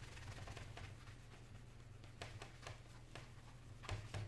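Cloth wiping across the glass of an iPad touch screen: a faint rubbing with small scattered clicks, and two light knocks near the end.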